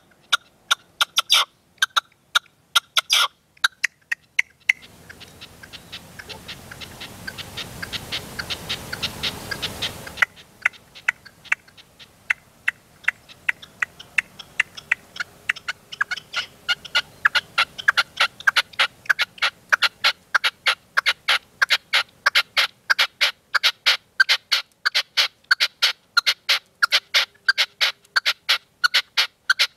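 Caged decoy male red-legged partridge calling: long runs of short, sharp clucking notes, several a second, coming thicker and faster in the second half. A hiss swells up from about five seconds in and cuts off abruptly at about ten seconds.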